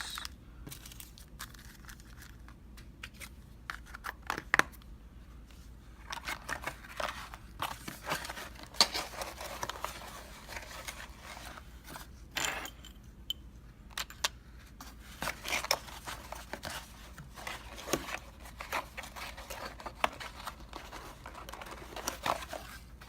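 Small packets of lock pinning parts, core shims and springs, being handled and stacked back into a box: scattered light clicks and taps with brief rustling and scraping.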